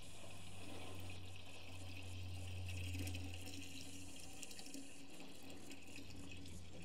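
Water being poured into a truck's radiator, running steadily into the filler, over a low steady hum.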